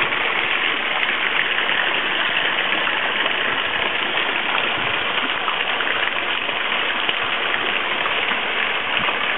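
Thick mine-tailings slurry, about 50–60% solids, pouring out of a discharge pipe into a concrete channel: a steady, unbroken rushing with spray spattering down around the outlet.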